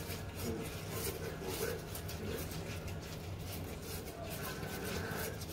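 Whisk beating a thick egg, sugar and flour mixture in a metal saucepan: rapid repeated scraping and tapping strokes against the pan.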